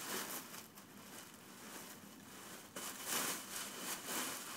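Clear plastic bag rustling and crinkling as a big plush teddy bear is pulled out of it, the rustling getting louder about three seconds in.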